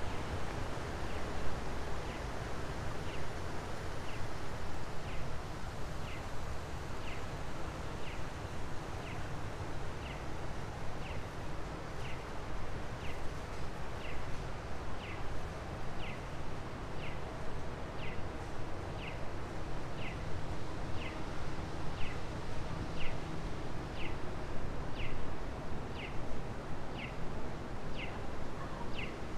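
A short, high chirp repeating evenly about once a second over steady outdoor city background noise.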